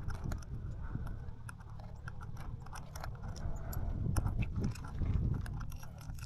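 Strong gusting wind buffeting the microphone in an uneven low rumble, with many scattered sharp clicks and ticks over it.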